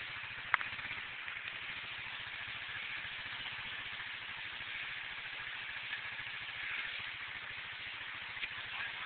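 ATV engine running steadily at low speed under a steady hiss of water as the quad wades through a flooded creek. A single sharp click about half a second in.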